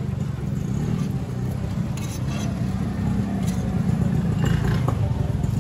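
A vehicle engine running steadily with a low rumble, with a few faint clicks over it.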